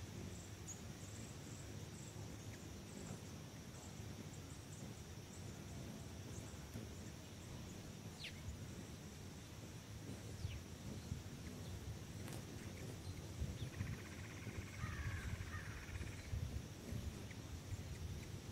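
Faint outdoor ambience: a steady high drone of insects over a low rumble. A few short bird calls sound over it, a quick falling chirp about eight seconds in and a buzzy call a little over halfway through.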